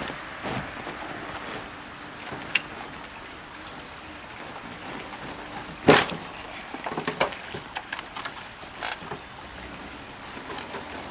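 Mazda Miata soft top and its folding frame being pushed and worked by hand, creaking, with a sharp knock about six seconds in and a few smaller clicks after it, as the frame is forced toward lining up with its bolt holes.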